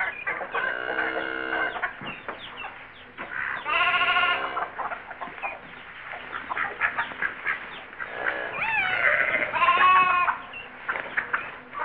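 Farm-animal sounds: a lamb bleats in two long, quavering calls, one about a second in and one about four seconds in. Hens cluck in short bursts throughout, and further calls rise and fall in pitch between about eight and ten seconds in.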